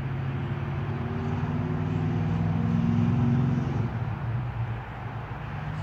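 A motor vehicle engine running, a steady low hum that grows louder until about three and a half seconds in, then drops away.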